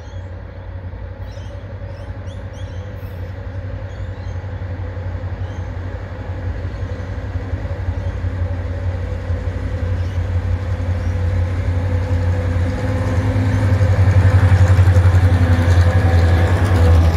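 Several diesel locomotives working in multiple at the head of a freight train, their engines giving a deep steady hum that grows steadily louder as the train approaches and draws level.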